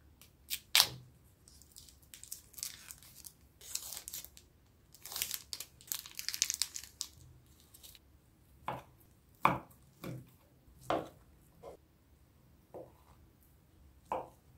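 A knife cuts into a sausage's plastic casing, and the casing is torn and peeled off with a crinkly tearing noise. From about halfway on, a knife chops through the sausage onto a wooden cutting board, about seven separate knocks.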